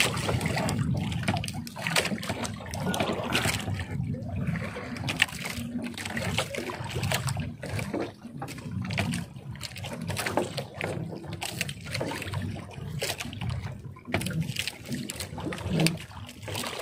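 Wet gill net being hauled by hand over the side of a small boat, water trickling and splashing off the mesh, with irregular small knocks and clatter against the hull.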